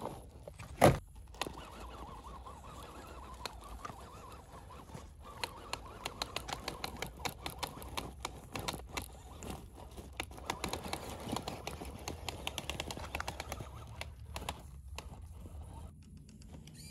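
RC crawler truck driving over a rough trail: a steady whirring from its small electric motor and gearbox, with a rapid run of clicks and crunches from the tyres on stones. A single sharp knock, the loudest sound, comes about a second in.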